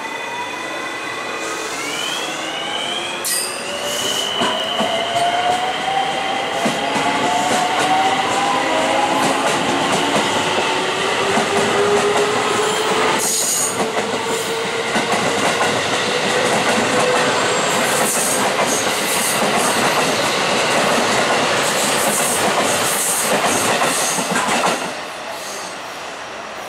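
Electric train passing close: a JR rapid-service electric multiple unit running by on the JR Kobe Line. Its motor whine glides up in pitch over the first few seconds, then falls slowly, under loud wheel noise and clatter over the rail joints. The noise drops off sharply about 25 seconds in.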